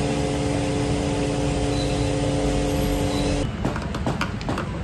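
Motorcycle engine running steadily with a low rumble, cutting off abruptly about three and a half seconds in, followed by scattered clicks and knocks.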